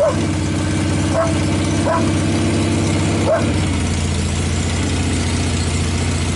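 A 1964 Norton N15CS's 750cc Atlas parallel-twin engine idling steadily. A dog barks about four times over the first three and a half seconds.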